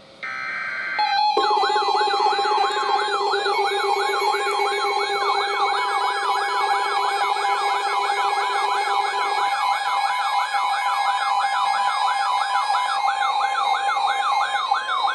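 Electronic siren-style alert alarm for a tornado warning. A tone warbles up and down about three times a second over a steady high tone, with a lower buzzing tone underneath that stops about two-thirds of the way through.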